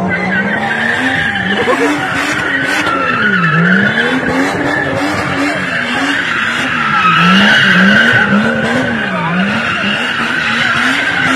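A car drifting with its tyres screeching continuously, while the engine revs rise and fall over and over as the throttle is worked.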